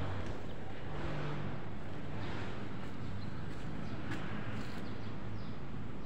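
Steady low engine hum over a constant street background noise, with a few faint clicks.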